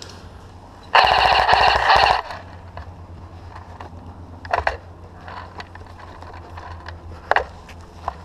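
Airsoft electric rifle firing one full-auto burst of rapid, closely spaced shots, about a second long. Two brief sharp sounds follow later.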